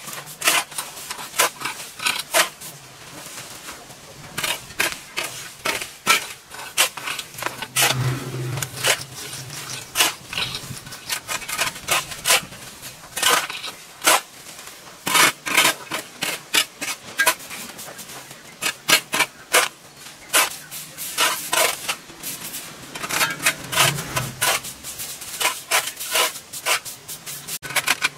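Continuous irregular scraping, clicking and knocking, several sharp clicks a second, with a couple of duller low thumps about 8 and 24 seconds in.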